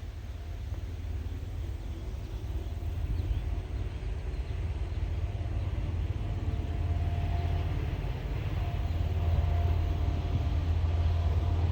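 Diesel locomotives of a Norfolk Southern freight train approaching, a deep engine rumble growing gradually louder.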